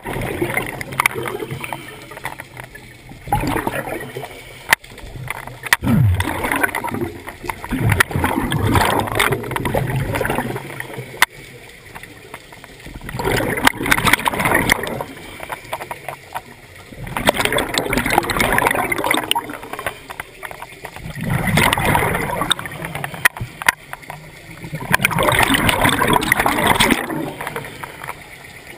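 Scuba diver breathing through a regulator underwater: exhaled bubbles gurgle out in noisy surges every four seconds or so, with quieter gaps for the inhales, and a few sharp clicks in between.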